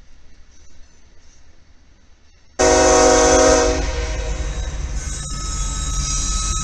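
Diesel locomotive horn sounding one loud blast of about a second, starting suddenly, followed by the heavy rumble of the approaching BNSF freight locomotive and its wheels, with a thin steady high whine over it.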